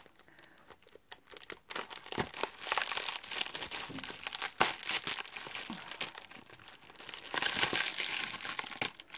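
Packaging crinkling and rustling as a parcel is unwrapped by hand, starting about two seconds in, with scattered sharp crackles.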